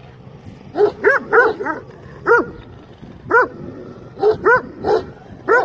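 Kangal shepherd dog barking: about ten short barks in irregular groups of one to three, each rising and falling in pitch.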